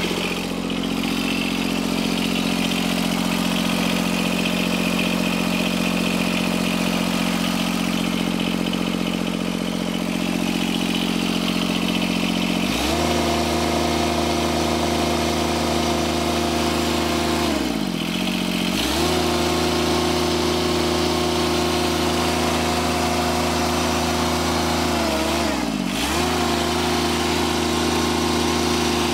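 John Deere 2653A trim reel mower's Yanmar diesel engine running steadily at low speed, then revved up to a higher steady speed about halfway through. Later its speed twice drops briefly and climbs back up.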